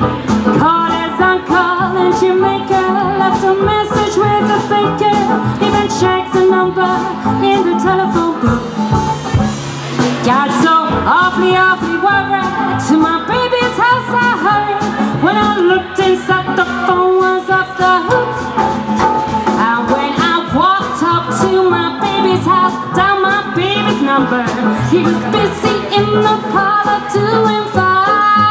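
Live swing jazz band playing, with a woman singing over horns, double bass and banjo.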